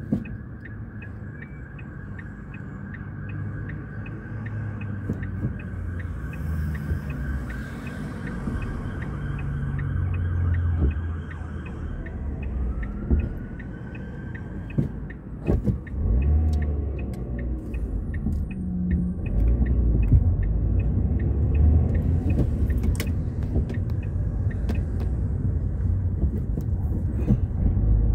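Car turn indicator ticking steadily inside the cabin while the car sits stationary, then the ticking stops and engine and road rumble build as the car pulls away and drives on.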